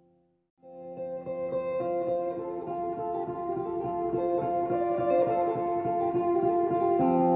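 Background music: it cuts out for about half a second at the start, then comes back as a busy run of quick short notes over held tones.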